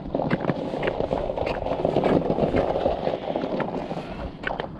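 Footsteps on bare lake ice, a run of short sharp knocks over a steady rushing noise of wind on the microphone.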